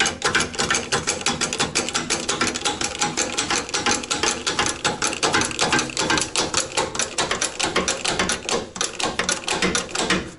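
A ratchet clicking rapidly and steadily, roughly ten clicks a second, as the front wheel is being raised; it stops suddenly at the very end.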